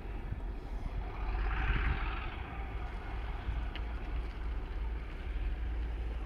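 Wind rumbling on the microphone over a steady low background rumble, with a brief hissing swell about a second and a half in.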